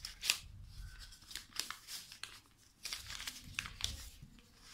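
Paper pattern sheet crinkling and rustling in the hands as it is folded into pleats, with irregular sharp crackles.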